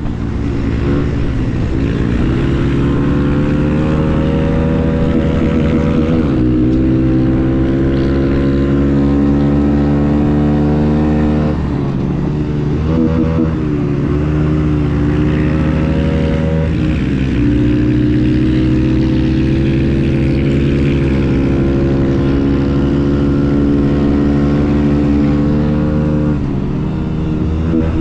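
Pitbike engine running under throttle, heard from on the bike. The revs climb, drop back and climb again several times as the bike rides along.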